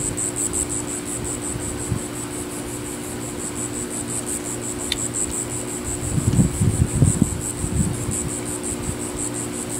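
Insects chirping: a high-pitched, fast, even pulsing that runs on steadily, over a low steady hum. A short stretch of low rumbling comes about six seconds in.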